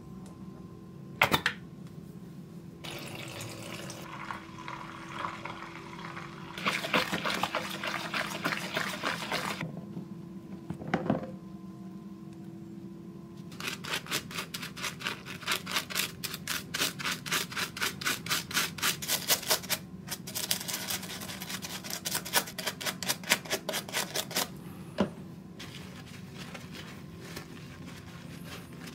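Water pours and sloshes into a plastic tub of dish soap. Then a brush scrubs a bare diecast metal toy truck body in soapy water with rapid, rhythmic back-and-forth strokes, about three a second, with a few sharp knocks of the part against the tub.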